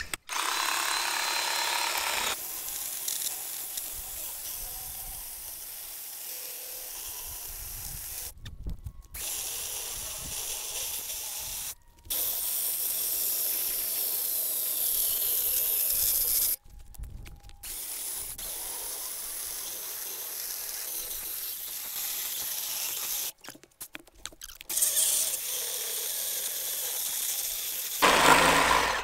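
Ryobi 18-volt brushed battery chainsaw cutting through a thick log: the electric motor whines and the chain tears through the wood. It is a slow cut, and the sound breaks off abruptly several times and picks up again.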